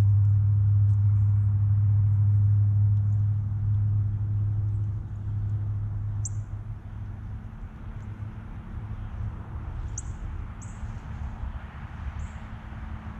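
A few short, high bird chirps, scattered through the second half, over a steady low rumble that is loudest for the first few seconds and then fades.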